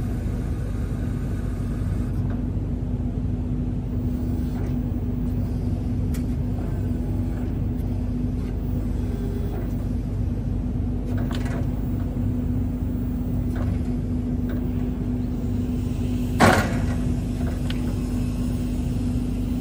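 Electric reach truck's hydraulic pump motor running with a steady low hum while the forks and mast are worked by the control lever, with a single sharp clunk about sixteen seconds in.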